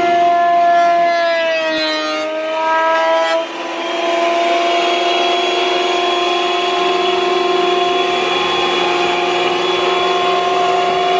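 Porter-Cable benchtop thickness planer running with a steady motor whine. About a second in, the pitch sags for a couple of seconds as a board feeds through under load, then the planer comes back up to speed and runs on steadily.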